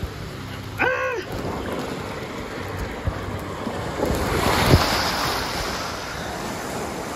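Water rushing down a body slide as the rider slides through it, with a brief shout about a second in. About four seconds in comes a loud splash as the rider shoots out into the landing pool, followed by churning water.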